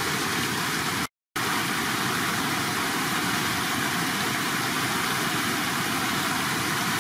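Steady rush of shallow water pouring across a concrete spillway, an even noise without pauses, with a brief total dropout about a second in.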